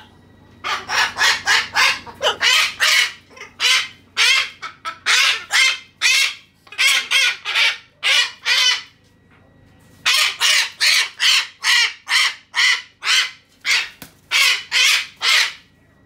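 Umbrella cockatoo screeching: loud squawks repeated about three a second in runs, with short gaps between runs and a longer break about nine seconds in.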